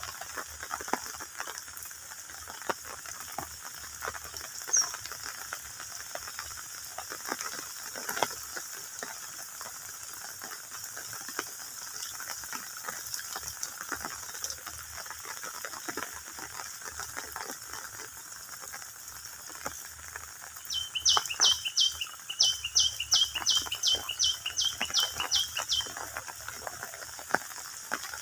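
Outdoor ambience of steady hiss and scattered small ticks. About three quarters of the way through, a bird gives a fast series of sharp, falling notes, about three a second, for some five seconds.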